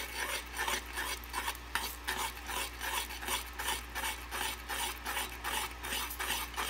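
A spoon stirring thin oat porridge around a small metal saucepan, scraping against the pan in an even rhythm of about three strokes a second.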